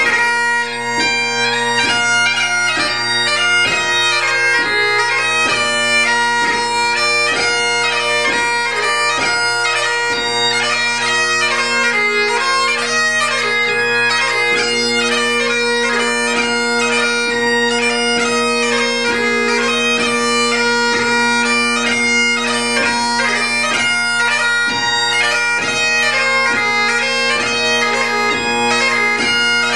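Solo Great Highland bagpipe playing ceol beag (light music). The drones hold a steady chord under a quick chanter melody that is broken up by rapid grace-note ornaments.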